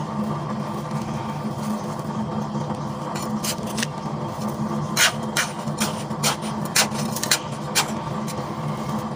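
Hands pressing and scraping through a pile of dry gravelly sand: a run of sharp, gritty clicks and crunches from grit and small stones, clustered in the middle of the stretch and loudest about halfway through. Underneath is a steady low hum.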